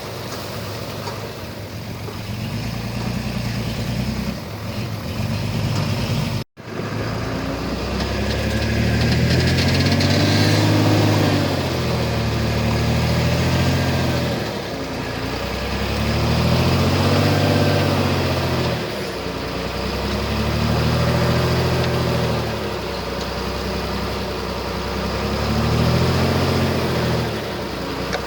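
Heavy diesel engine of earthmoving equipment running steadily, then, after a brief cut about six seconds in, swelling and easing in pitch and loudness over and over, roughly every three to four seconds, as it comes under load and lets off.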